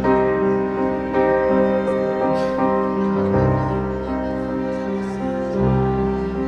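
Slow, tender instrumental music led by piano, with held chords and a deep bass note changing a little over three seconds in and again near the end.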